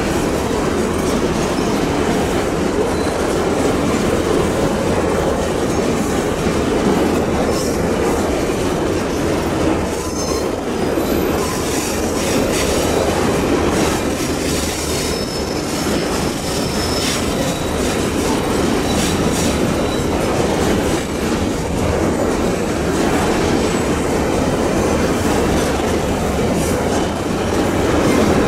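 Empty steel coal wagons of a long Babaranjang freight train rolling past on a curve: a steady rumble of steel wheels on rail with scattered clicks over the rail joints and thin wheel squeal now and then.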